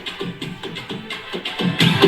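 Electronic dance music with a steady beat playing through a boAt Stone 350 portable Bluetooth speaker, thin in the deepest bass. It gets louder near the end.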